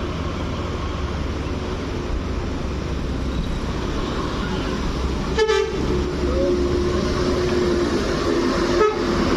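Intercity bus climbing a steep grade, its engine a steady low rumble. From a little past halfway its horn sounds one long, steady note.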